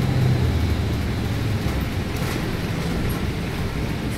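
City bus heard from inside while driving: a steady low motor hum with road noise.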